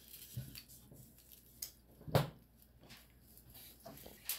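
A few scattered soft knocks and taps, the loudest about two seconds in, from hands handling foam plates and pressing candies onto treats on a wooden table.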